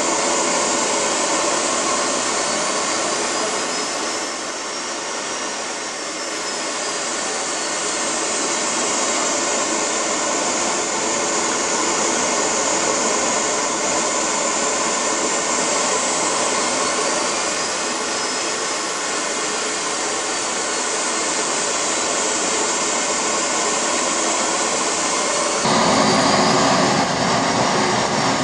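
Small model jet turbine engine running: a steady rushing hiss with a high whine that rises and falls in pitch twice. About 26 seconds in the sound suddenly turns louder and fuller.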